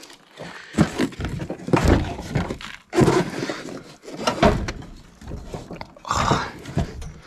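A man grunting and breathing hard with effort as he lifts and shifts a heavy sawmill saw head by hand, with scuffs and knocks of the steel head against the crate and cardboard. The strained sounds come in uneven bursts about once a second.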